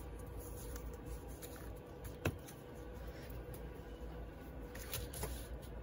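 Quiet handling of paper memo pads on a desk, with one sharp tap a little over two seconds in and a few fainter clicks near the end, over a low steady hum.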